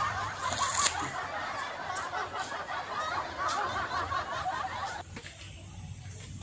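A group of people laughing and snickering, cutting off suddenly about five seconds in.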